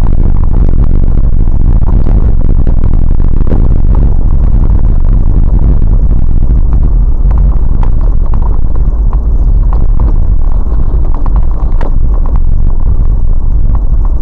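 Vehicle driving over a rough, snow-covered dirt track, picked up by a dashcam microphone inside the cab: a loud, steady low rumble with irregular knocks and rattles from the bumps.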